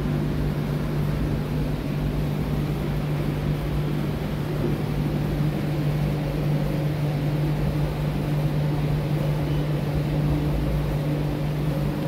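Steady low mechanical hum and rumble with one constant low tone.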